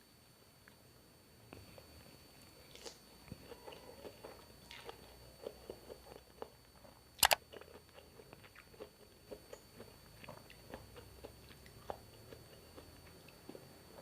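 A person eating close to the microphone: chewing with many small, irregular wet mouth clicks, and one sharp loud click about seven seconds in.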